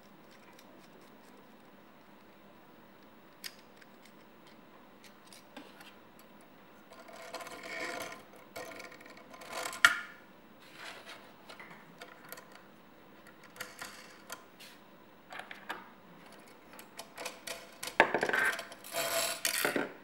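Small metal and plastic parts being handled: a coil spring, a metal rod and a plastic buckle clicking and rattling against a metal paracord jig. Faint at first, then scattered clicks and rattles from about a third of the way in, with sharp clicks near the middle and near the end.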